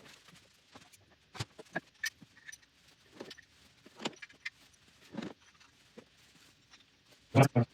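Light metallic clicks and clinks of LS3 push rods and rocker arms being handled and set in place, irregular and spread out, with a louder double knock near the end.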